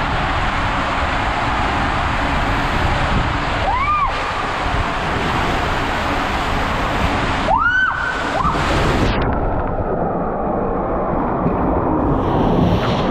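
Inflatable tube sliding fast down an enclosed tube waterslide: a steady rush and rumble of water, with a few short rising-and-falling squeaks, one about four seconds in and a couple near the middle. Near the end the tube splashes out into the landing pool.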